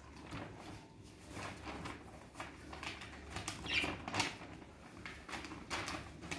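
Faint, irregular rustles and light taps of small objects being handled, a little busier in the second half.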